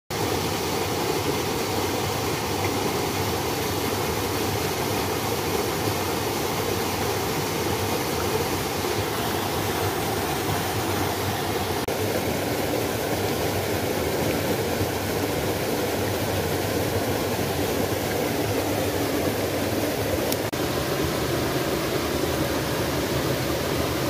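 Small forest waterfall pouring into a rock pool: a steady rush of splashing water. Its tone shifts about halfway through and again near the end, as a different cascade is heard.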